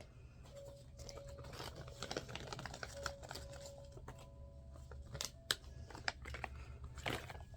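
Small plastic Mini Brands miniatures and their packaging being handled, making scattered light clicks, taps and crinkling, with a few sharper clicks near the end.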